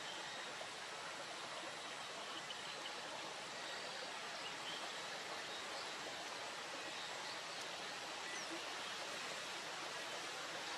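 Steady, even outdoor hiss with a few faint, short high-pitched sounds over it.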